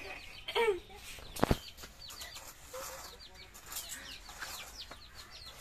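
A chick peeping in a quick string of short, high, falling chirps, with a hen clucking. A single sharp knock about a second and a half in is the loudest sound.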